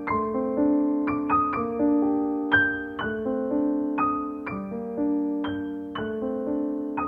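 Background music: a gentle piano melody, notes struck about every half second and left to fade over a few held low notes.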